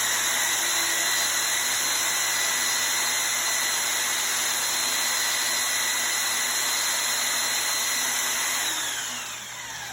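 Makita 4x24 belt sander, rebuilt as a stretched-out belt grinder, running at full speed: a pretty loud steady whine over the hiss of the belt. Near the end it is switched off and the whine falls away as the motor spins down.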